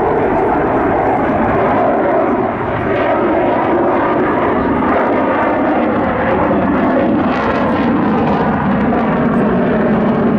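Jet aircraft in flight: loud, steady engine noise.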